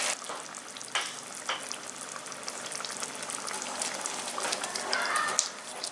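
Tomato sauce bubbling and sizzling in a nonstick pan while a spatula stirs through it, with a couple of sharp clicks about a second in.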